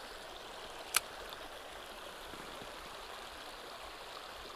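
Shallow river water running steadily, a faint even rush, with a single sharp click about a second in.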